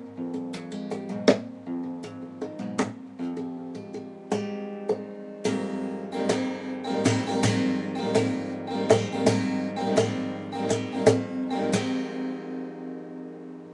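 Solo guitar being played: single notes and chords picked with sharp attacks, turning into a busier run of strummed and plucked chords about five seconds in, then a final chord left ringing and fading near the end.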